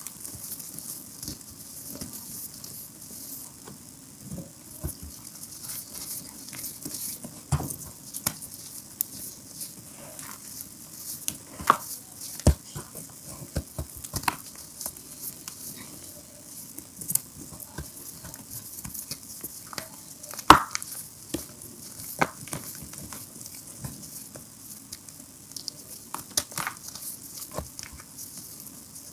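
Hands squeezing and crumbling broken reformed gym chalk: a continuous crisp, crunchy crackle of powder and small lumps, with scattered sharper cracks as pieces snap, the loudest about two-thirds of the way through.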